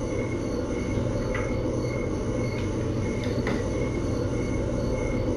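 Steady background hum and hiss of the room, with a faint high tone pulsing about twice a second and a couple of faint short ticks.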